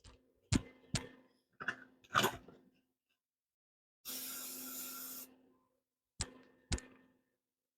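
Aerosol spray paint can spraying one steady hiss of about a second, about four seconds in. A few sharp clicks and knocks come before and after it.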